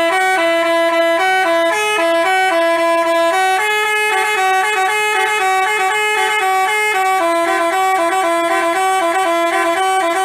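Telolet bus horn, a Basuri multi-tone horn, playing a tune: a continuous run of held notes that step up and down between a few pitches, cutting off right at the end.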